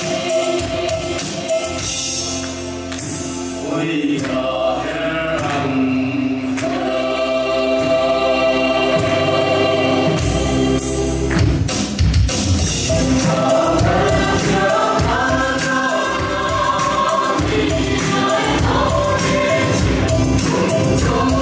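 Group singing of a Chheih hla, the Mizo folk song that accompanies the Chheihlam dance, with many voices together over a drum and hand claps that keep a steady beat, most evenly in the second half.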